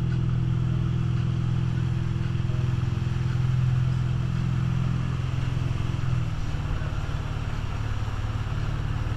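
Moomba ski boat's inboard engine running steadily at towing speed, with the rush of the churning wake behind the stern. The engine note drops slightly about six seconds in.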